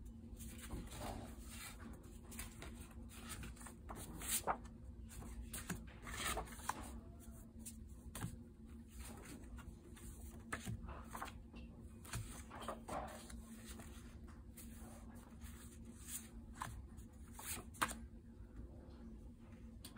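Loose paper notecards being handled and leafed through by hand: repeated soft rustles and flicks of card against card, the sharpest about four seconds in and again near the end.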